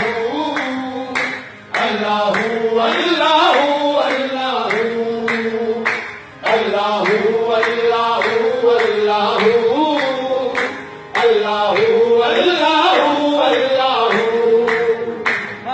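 Qawwali music: male voices singing phrases over a steady harmonium line, with tabla and rhythmic hand claps keeping time. The music breaks off briefly three times between phrases.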